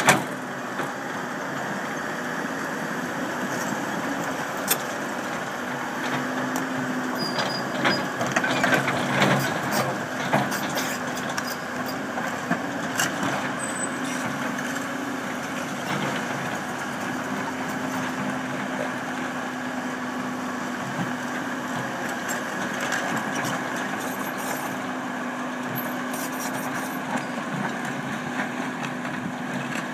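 Volvo tracked excavator's diesel engine running steadily with a constant hum, with knocks and rattles from the machine as it tracks and works its arm, busiest about eight to ten seconds in.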